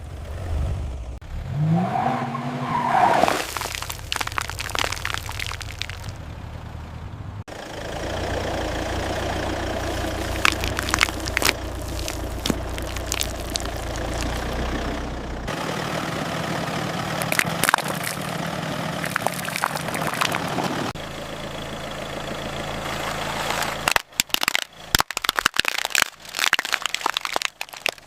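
A car's tyres rolling over and crushing objects, with sharp cracks and crunches over the low rumble of the car. The sound changes abruptly several times, and there is a brief rising squeal about two seconds in.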